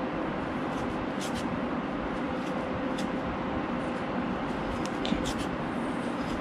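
Steady background hum and hiss, with a faint steady tone underneath and a few faint, light ticks.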